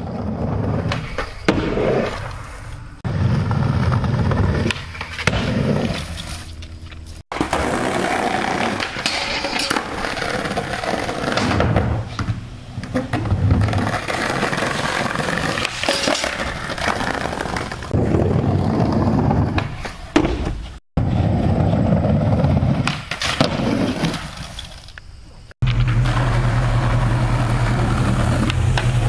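Skateboard wheels rolling on concrete, with the sharp clacks of the board popping and landing tricks, in several short stretches that change abruptly.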